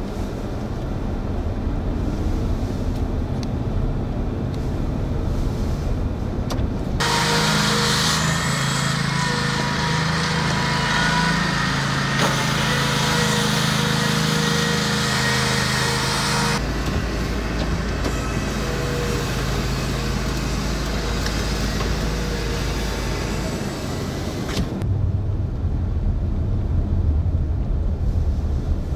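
A car driving: steady road and engine noise. It changes abruptly three times, and the stretch between the first two changes carries a louder hiss.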